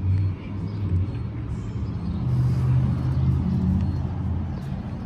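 Motor vehicle engine running close by: a low, steady hum that swells and rises a little in pitch about two seconds in, then eases off again.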